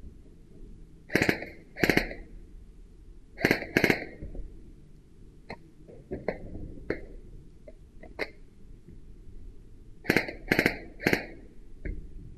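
Airsoft gun firing single shots as sharp cracks: two, then two more, then three in quick succession near the end, with fainter clicks and knocks in between.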